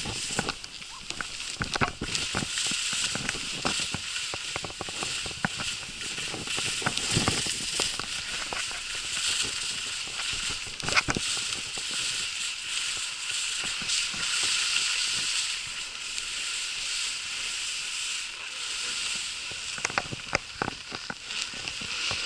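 Skis hissing and scraping over groomed snow on a fast downhill run, with many short clicks and knocks from the skis and edges along the way.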